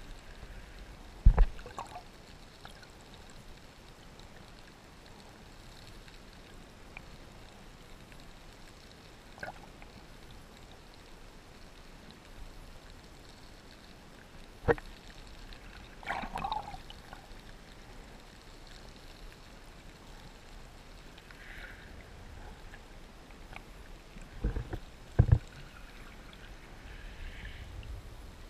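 Muffled underwater ambience heard from a submerged camera: a faint, steady wash of water with a few sharp knocks, one about a second in, one midway and a close pair near the end.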